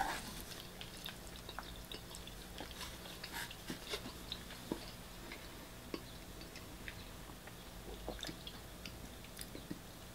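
Faint close-up chewing of a mouthful of shredded beef, chilli and rice: soft, irregular wet mouth clicks and smacks.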